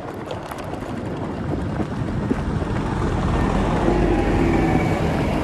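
Wind on the microphone and the rolling noise of a bike on a gravel road. From about halfway a tractor engine approaches and grows louder, with a steady drone.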